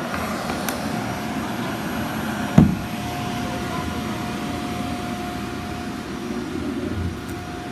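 Roomba robot vacuum running with a steady whir and a thin, steady high tone, with one sharp knock about two and a half seconds in.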